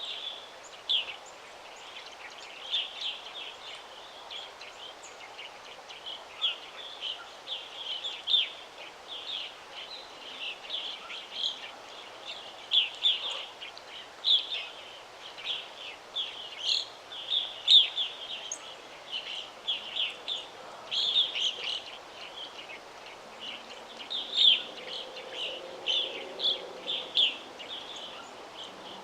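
Songbirds chirping: many short, high chirps in quick succession, some louder and closer than others, over a soft steady background hiss.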